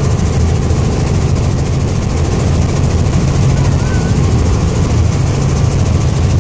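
Light helicopter in flight, heard from inside the cabin: a steady, loud drone of engine and rotor, heaviest in the low end.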